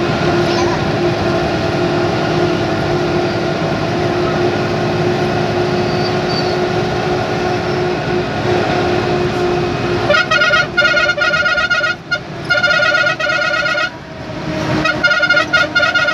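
Bus horn sounding in three bursts of rapid pulsing toots, beginning about ten seconds in, heard from inside the cab over the steady drone of the bus's engine and road noise.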